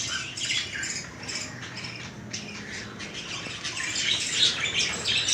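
A flock of budgerigars chattering and squawking: many short, overlapping calls, growing busier and louder near the end.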